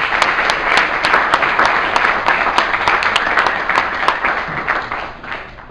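Audience applauding, a dense wash of clapping with some sharp individual claps standing out. The applause tapers off near the end.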